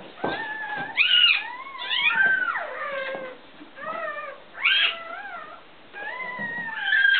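Newborn puppies crying: a string of thin, high-pitched squeals, each sliding up and then down in pitch, coming about once a second with short gaps between.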